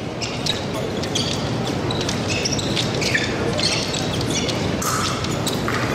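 Short high squeaks and clicks from fencers' footwork on the piste, over the steady murmur of a large hall.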